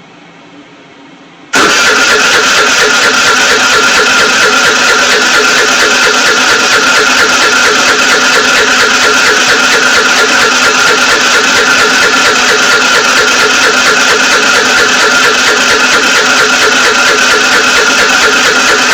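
Scooter's electric starter cranking the engine, cutting in suddenly about a second and a half in and then running on steadily: a steady high starter whine over the fast, even turning-over of the engine, which does not start.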